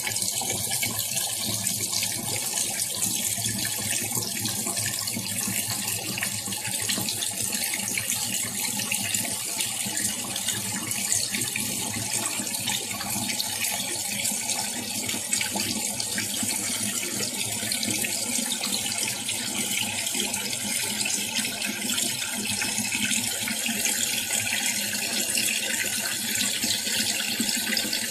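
Steady rush and splash of water in a Tangarus portable washing machine, unbroken throughout.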